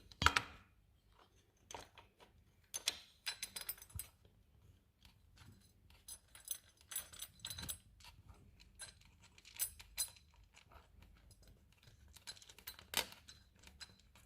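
Scattered light metallic clicks and clinks of small hardware, a bolt and washers on a motorcycle's shift linkage, being handled and fitted by hand.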